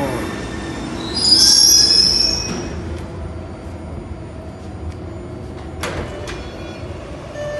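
New CRRC-built MBTA Orange Line subway train coming to a stop at the platform: its motor whine falls away at the start, then a loud high-pitched squeal about a second in lasts a little over a second as it halts. A quieter steady rumble follows, with two sharp clicks about six seconds in.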